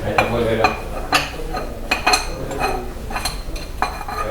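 Dishes and cutlery clinking as they are washed by hand: about half a dozen sharp, ringing clinks of plates and utensils knocking together.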